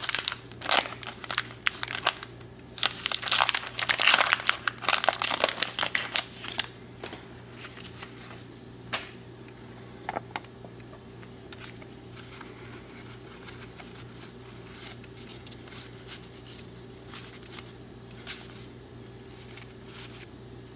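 Waxed-paper wrapper of a 1990 Donruss baseball card wax pack being torn open and crinkled for about the first six seconds. After that, scattered soft clicks and flicks as the stiff cardboard cards are handled and thumbed through.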